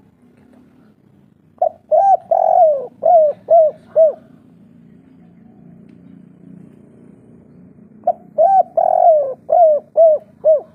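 Spotted dove (tekukur) singing its 'kuk 3' song: two phrases of about seven coos each, a few seconds apart, the final notes falling in pitch.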